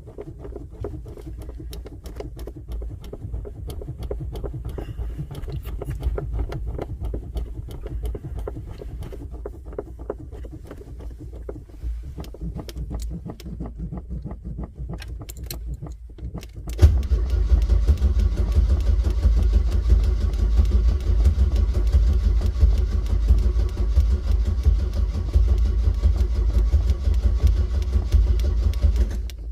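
An old Chevrolet's engine being cranked by the starter for about seventeen seconds, with short pauses, then catching and running loudly for the rest of the time before stalling right at the end.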